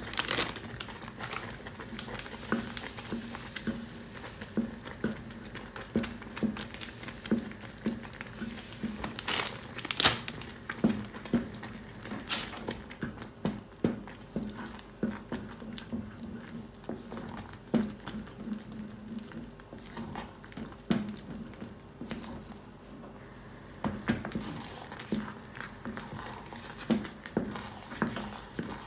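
Wooden spoon stirring and beating thick fufu dough in an aluminium saucepan, with repeated irregular knocks of the spoon against the pot, about one or two a second, as the dough stiffens.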